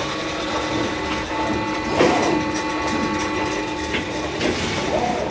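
Potting line machinery running: conveyor belt drives give a steady hum with light clatter, and a knock about two seconds in.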